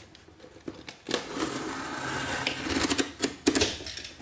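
Snap-off utility knife slicing through the packing tape along a cardboard box's seam: a rasping cut of about two seconds that starts about a second in, followed by a few sharp clicks.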